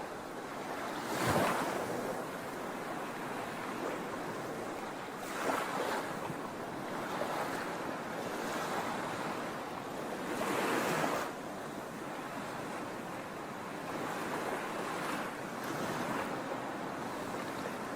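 Sea waves breaking on a shore: a continuous wash of surf, with louder breaks about a second in, around five and a half seconds and around eleven seconds.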